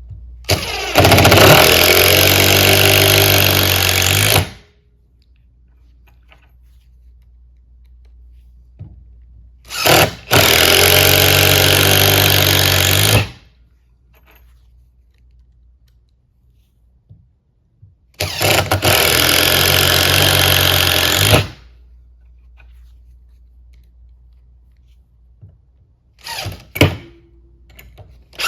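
Impact driver with a #2 Phillips bit driving screws into pilot-drilled 2x4 and 4x4 lumber: three runs of about three and a half seconds each of loud rapid hammering, then two short bursts near the end as screws are seated.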